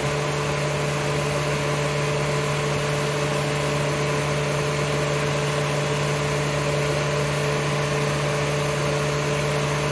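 Honda Pilot's 3.5-litre VTEC V6 idling with the A/C compressor engaged, a steady hum with a few constant tones. The compressor has kicked on because refrigerant is being added to the low-pressure side.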